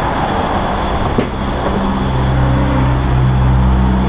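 Steady low mechanical hum of running machinery, growing fuller and louder about two seconds in, with a single sharp click a little over a second in.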